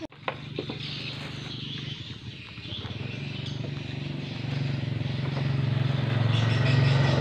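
A small vehicle engine running with a steady low hum, growing louder through the second half as it draws nearer.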